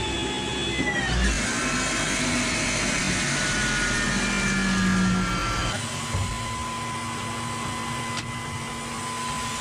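Electric motor whine and steady machinery hum inside a Msta-S self-propelled howitzer's turret. The whine slides down in pitch over the first few seconds. About six seconds in, the sound changes to a steadier hum with one fixed tone.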